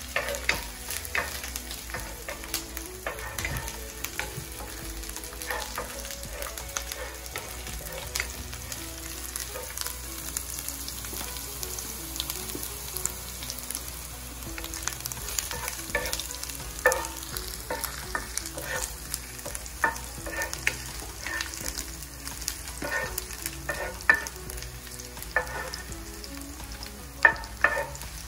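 Chopped garlic sizzling in hot oil in a nonstick frying pan while a wooden spatula stirs it, with frequent short clicks and scrapes of the spatula on the pan and a few sharper knocks in the second half. A second pan of food frying in oil adds to the steady sizzle.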